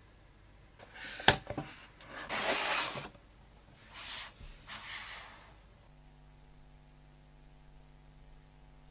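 Cardboard retail box being opened by hand: a sharp snap about a second in, then a scraping slide of about a second and softer rustles of cardboard and plastic wrap. A faint steady hum takes over for the last three seconds.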